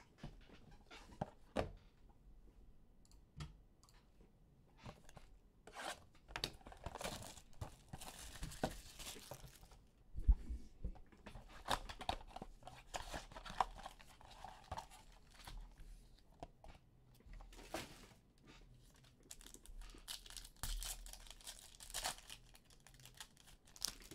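Foil trading-card packs being torn open and their wrappers crinkled by hand, in irregular rips and crackles, with a single thump about ten seconds in.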